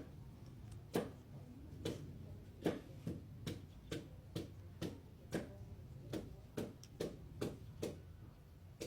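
A series of short, sharp taps or knocks over a low steady hum: about one a second at first, then quickening to about two a second from roughly three seconds in.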